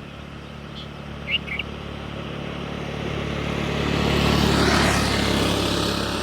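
A motor vehicle passing by, its sound swelling to its loudest about four to five seconds in and then fading. Two quick bird chirps sound about a second in.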